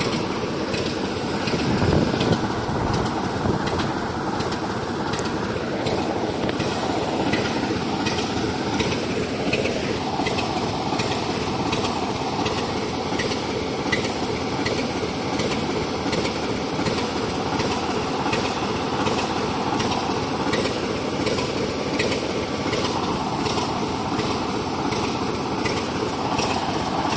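Class 50 diesel locomotive's English Electric V16 engine running steadily, its note shifting slightly a couple of times.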